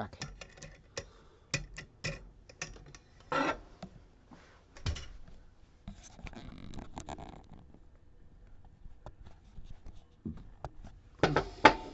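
Small metallic clicks and scrapes of lock-picking tools working in a Ruko DP2 lock, irregular and sparse, with a few louder clacks near the end.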